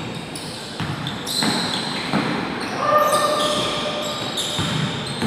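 Basketball game sounds on a wooden gym court: a ball bouncing, players running, with short shoe squeaks and voices around the large hall.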